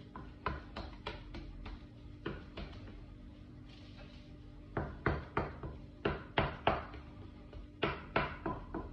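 A utensil clicking and scraping against a glass baking dish as set semolina pudding is cut and lifted out, in irregular sharp knocks that come thicker and louder in the second half.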